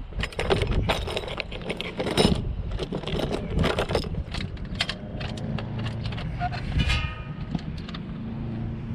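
Small metal hardware clinking and rattling as it is handled, in quick clusters of clicks over the first few seconds. A brief squeak comes about seven seconds in, over a steady low rumble.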